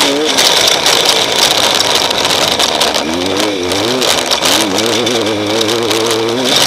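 Off-road race vehicle engine heard from an onboard camera, its revs rising and falling in a wavering pitch from about halfway through, over a steady hiss of wind and road noise with frequent knocks and rattles from rough terrain.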